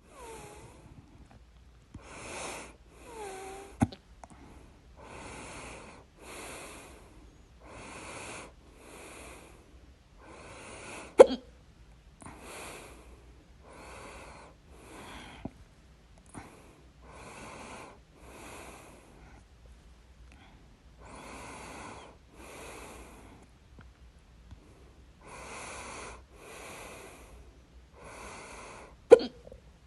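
A person's loud hiccups: three sharp jolts, about 4, 11 and 29 seconds in, with noisy breathing in and out between them, roughly one breath sound a second.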